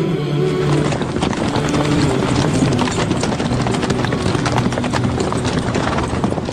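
Dense, rapid clatter of many horses' hooves galloping, as in a cavalry charge. Low steady tones of music or chanting sound underneath.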